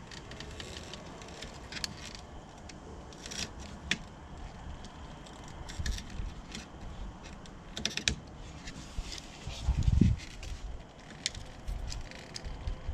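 Scattered light clicks, clinks and rustles of hands working with tools and screen mesh, with a dull thump about ten seconds in.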